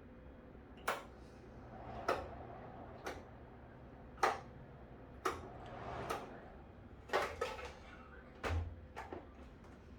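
A series of sharp clicks and knocks, about nine, spaced roughly a second apart, some followed by a brief rushing swell.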